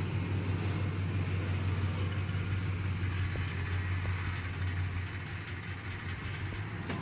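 Ford F-150 pickup's engine running steadily with a low hum, fading a little near the end.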